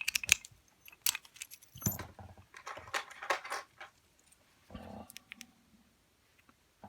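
Light metallic clicks and rattles from a six-lever padlock being handled and turned over: its shackle and body knocking and jingling in short bursts, the busiest stretch about three seconds in.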